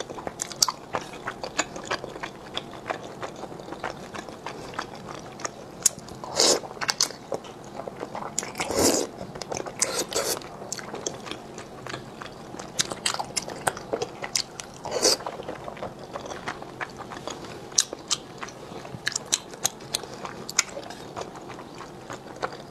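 Close-miked chewing and slurping of thick, chewy sweet potato starch noodles in chili oil: steady wet mouth clicks with a few louder slurps.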